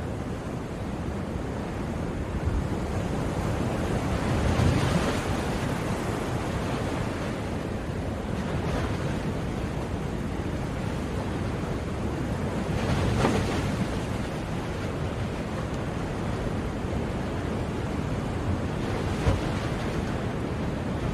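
Sea waves breaking and washing on a shore, a continuous surf with swells about 5, 13 and 19 seconds in.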